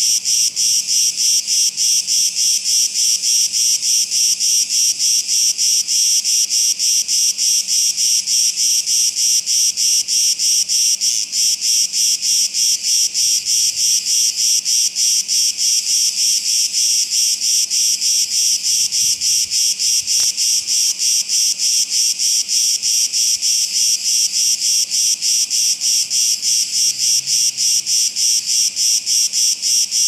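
Loud chorus of cicadas in the summer heat, a dense high-pitched shrilling that pulses evenly several times a second without a break.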